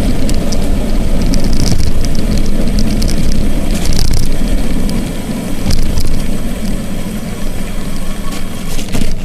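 Wind rumbling on the microphone of a camera carried on a moving bicycle, mixed with tyre noise on a wet, slushy road; loud and uneven throughout, with a few faint high ticks.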